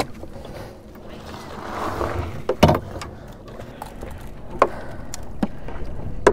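Clatter of unhooking a red snapper in a landing net with a metal hook remover: a few sharp clicks and knocks, the loudest about two and a half seconds in.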